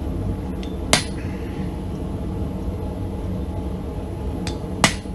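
Two sharp metal-on-metal hammer blows about four seconds apart, each just after a lighter tap: a hammer striking a punch into the steel of a railroad-spike skull pendant. A steady low rumble runs underneath.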